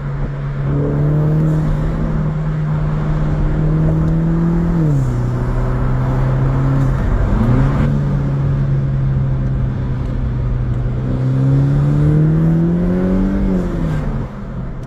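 BMW B48 turbocharged four-cylinder engine fitted with an aftermarket cone induction kit, running under load. Its note climbs slowly and drops sharply about five seconds in, then climbs and falls again near the end.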